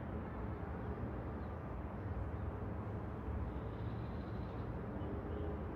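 Distant road traffic: a steady low rumble of passing cars.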